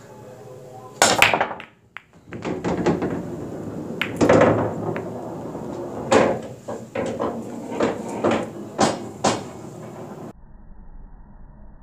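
Pool break made with a 25-ounce Rage heavy break jump cue with a phenolic tip: a loud crack as the cue strikes and the rack scatters about a second in, then balls clacking against each other and off the cushions for several seconds.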